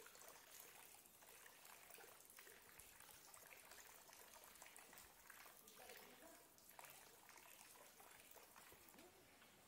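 Faint, steady trickle of a stone fountain's spout running into its basin, with small scattered drips and splashes.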